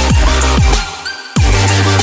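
Electronic background music with a heavy bass beat and punchy kick drums; it thins out briefly about a second in, then comes back in full.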